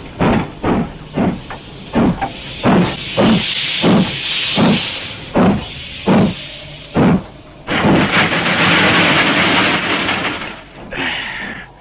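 Steam locomotive working slowly through deep snow: its exhaust chuffs at about two beats a second, the beats slowing to about one a second. About eight seconds in, the chuffing gives way to a long, steady hiss of steam lasting some three seconds.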